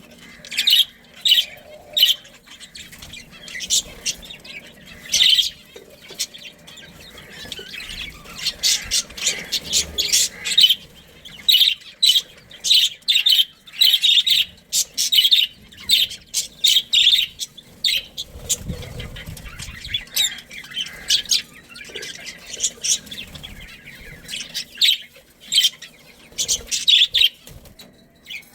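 Budgerigars chirping and chattering, many short high calls in quick succession with brief pauses between runs.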